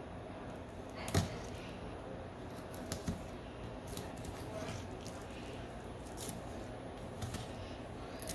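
Fillet knife slicing along a whole flounder's backbone and rib bones, with a few sharp clicks, the loudest about a second in.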